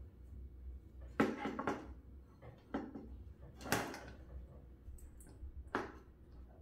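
A grow light's tripod stand being handled and set up, its legs and locking joints knocking and clattering: a handful of separate sharp knocks spread through, the loudest about a second in and near four seconds.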